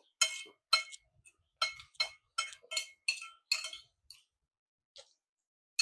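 Cutlery clinking repeatedly against a dish while eating, with about eight light strikes in the first four seconds, each with a short ring at the same pitch, and one more at the very end.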